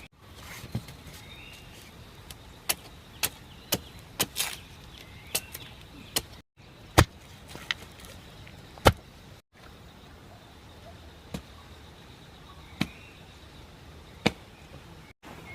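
Chopping wood: about fifteen sharp, irregular strikes, some much louder than others. Faint bird chirps sound between the strikes.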